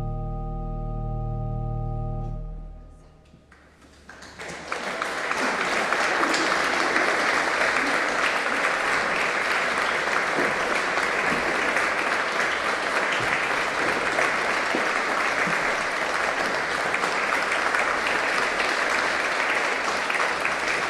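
A church pipe organ holds the final chord of a song, cutting off about two and a half seconds in. After a short pause, an audience breaks into steady applause that continues to the end.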